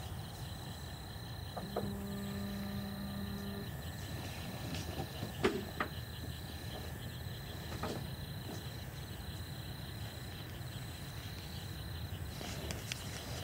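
Crickets trilling steadily at one high pitch over a low, steady rumble. A low hum sounds for about two seconds near the start, and a few sharp clicks of handled gear come in the middle.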